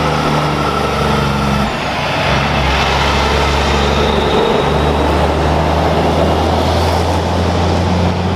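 Truck engine running steadily, a loud low hum under a dense rushing noise, with a slight dip in pitch about two seconds in and again near four and a half seconds.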